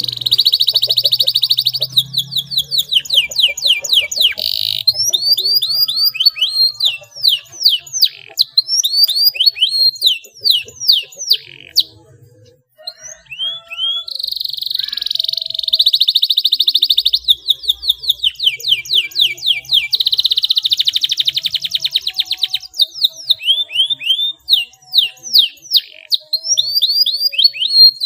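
Domestic canary singing a long, high-pitched song of fast buzzy rolls alternating with runs of quick down-sweeping whistled notes, pausing briefly about halfway through.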